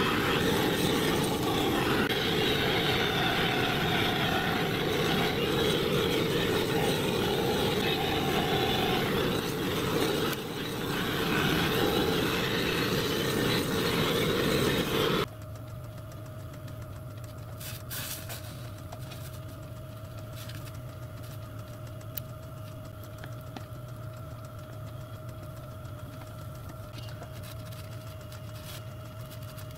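Gas blowtorch burning with a steady roar, its flame played over the inside of a brass water tank to heat the seams for soft soldering. About fifteen seconds in the sound drops abruptly to a much quieter steady hiss with a faint hum.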